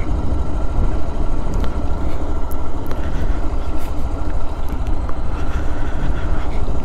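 Motorcycle ridden slowly along a dirt track, its engine running steadily under a heavy low rumble.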